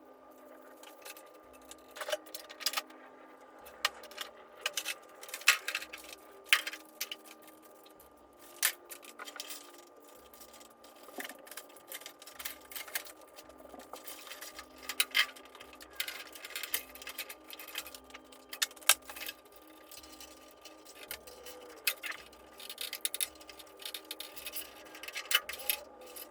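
Irregular metallic clicks, clinks and knocks of hand tools and parts being handled during a car engine teardown, over a faint steady hum.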